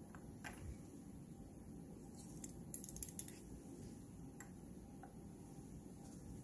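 Light clinks and taps from a glass test tube and a metal spatula being handled as powder is put into the tube. The loudest is a quick cluster of sharp clicks about two and a half to three and a half seconds in, with a few fainter taps around it.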